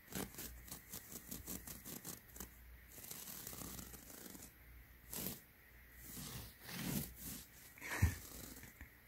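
Fingers scratching a surface in quick, rapid strokes to lure a kitten, then a few separate scratchy rustles and a short thump about eight seconds in.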